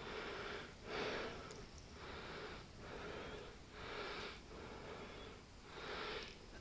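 A man's faint, heavy breathing close to the microphone, about one breath a second, while he plays a hard-pulling fish on the line.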